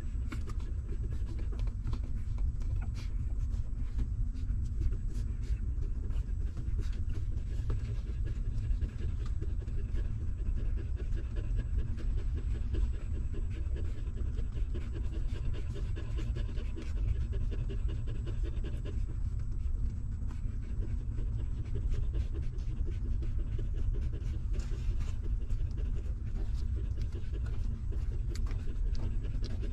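Nursing mother dog panting steadily, with many small clicks from her newborn puppies suckling milk.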